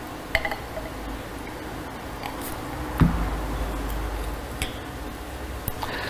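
Light clicks and knocks of glassware being handled: test tubes and a small cup clinking and being set down, with one louder knock about three seconds in.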